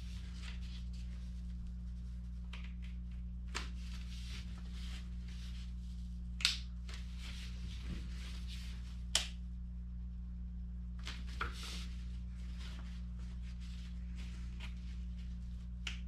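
Inuit frame drum being tightened by hand: a few scattered small clicks and taps of the wooden drumstick and lacing string working against the drum's rim, over a steady low hum in the room.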